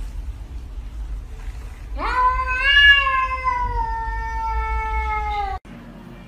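A cat's long drawn-out meow, rising sharply at its start and then sliding slowly down in pitch for about three and a half seconds, cut off suddenly.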